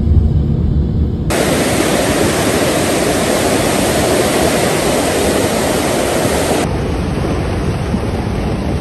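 Rushing floodwater: the loud, steady noise of a swollen muddy torrent. The sound changes abruptly twice, about a second in and again near the end.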